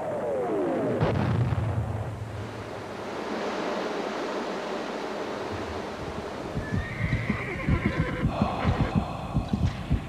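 A horse whinnying, falling in pitch, in the first second, then a steady rushing noise. About two-thirds of the way in, a quick run of thuds begins.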